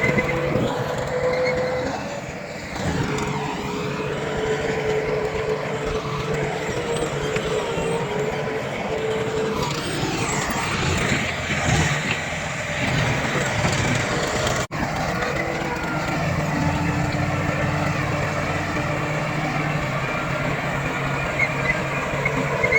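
Diesel engines of heavy earthmoving machinery, a bulldozer and dump trucks, running continuously, the pitch rising and falling now and then as they work. The sound drops out for an instant about 15 seconds in.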